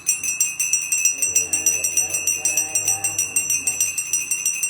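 A puja hand bell rung rapidly and steadily, its strikes blending into one continuous ringing, over devotional singing.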